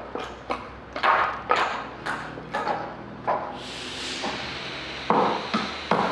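Hammer blows striking wood, a quick run of sharp knocks about two a second. About halfway in a steady hiss sets in under a few more knocks.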